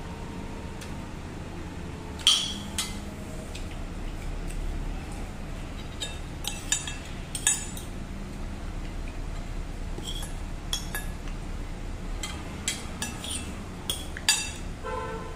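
Metal spoon and fork clinking against a ceramic plate during a meal, in scattered sharp clinks with the loudest about two seconds in, over a low steady hum.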